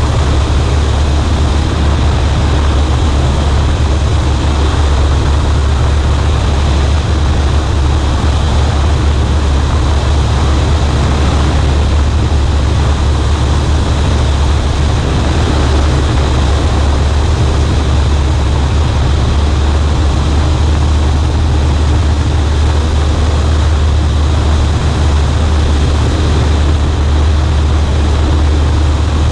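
Cessna 140A's piston engine and propeller running at a steady, unchanging drone, with a strong low hum under a broad rushing noise.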